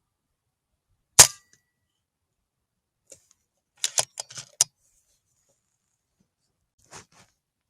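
A single sharp crack from a moderated FX Impact .22 PCP air rifle being fired. About two and a half seconds later comes a quick run of metallic clicks as the action is cycled, then one faint click.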